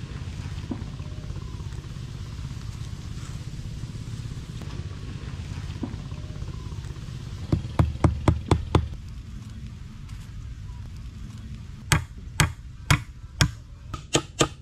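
Hammer blows on the wooden boat frame: a quick run of about eight strikes around the middle, then slower blows about half a second apart near the end, over a steady low rumble.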